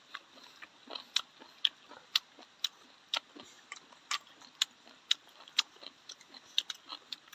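A steady, even series of sharp clicks, about two a second.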